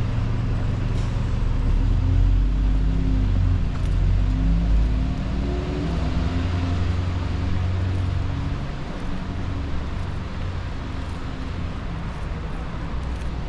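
A motor vehicle's engine running close by, a low pitched rumble over street noise, fading away after about eight or nine seconds.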